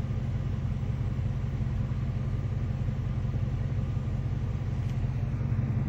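Stroker car engine idling steadily, heard from inside the cabin as an even low drone. It is running at the stoichiometric air-fuel ratio at idle.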